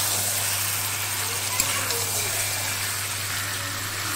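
Raw chicken pieces sizzling in hot oil and spice paste in a wok as a spatula turns them, sautéing on a medium flame: a steady hiss, with one light tap of the spatula about one and a half seconds in.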